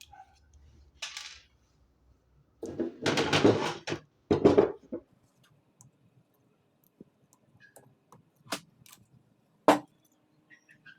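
Handling noises from opening the solar kit's casing to change its battery: a loud clatter and rattle of hard plastic parts lasting about two seconds, then a few sharp clicks, the loudest near the end.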